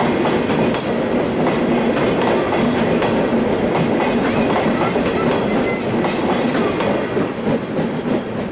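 Bangladesh Railway intercity passenger coaches rolling past close by on a curve: a steady rumble of steel wheels on rail with clickety-clack over the joints and two brief high wheel squeals. The rumble begins to fade near the end as the last coach goes by.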